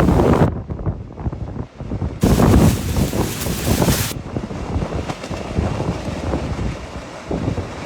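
Strong gale wind buffeting the microphone as a loud, rushing rumble. It drops off abruptly about half a second in, comes back loud around two seconds, and eases to a lower steady rush after four seconds.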